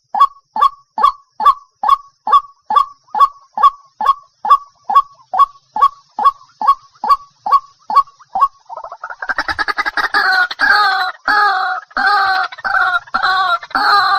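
White-breasted waterhen calling: a single short, falling 'kook' note repeated about twice a second. About two-thirds of the way through it breaks into a fast, harsh croaking chatter, the 'kru-ak kru-ak' part of its call.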